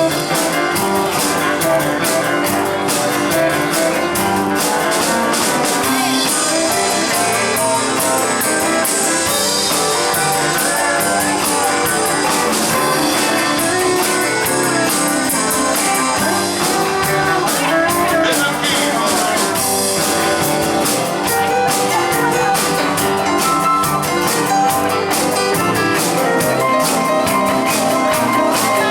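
Honky-tonk country band playing an instrumental break, with electric guitar, drum kit, steel guitar and keyboards.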